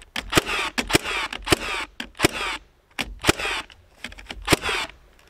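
Ridgid cordless battery framing nailer driving nails into a wooden board in quick succession, about two shots a second with a motor whir between them and a short pause near the middle. The gun is set to single-shot, so each nail takes a trigger pull, and it keeps up with the fast firing.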